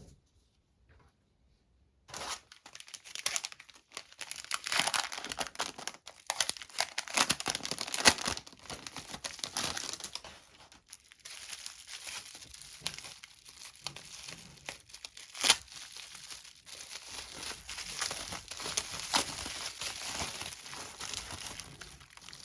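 Packaging being unwrapped by hand: crinkling and tearing that starts about two seconds in and goes on busily, with a few sharper crackles.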